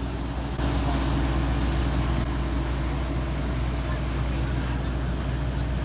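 Boat engine running steadily with a constant low hum, over a hiss of wind and water; it gets a little louder about half a second in.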